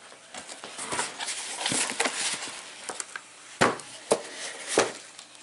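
Packaging being handled: irregular rustling with scattered small clicks, and a few sharp knocks between about three and a half and five seconds in.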